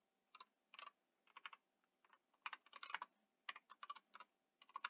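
Faint typing on a computer keyboard: about a dozen irregular keystrokes, some in quick little runs.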